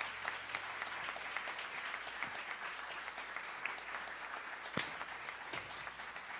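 Audience applauding steadily, a dense patter of many hands clapping, with one sharper knock about five seconds in.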